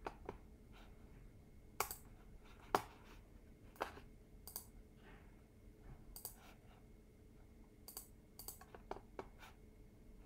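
Computer mouse clicking: about a dozen short, separate clicks spread irregularly, some in quick pairs, over a faint steady hum.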